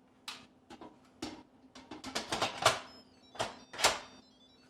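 Instant Pot lid being set on and twisted shut: a series of plastic and metal clicks and clacks, a quick cluster in the middle and two louder clacks near the end, followed by faint high electronic tones.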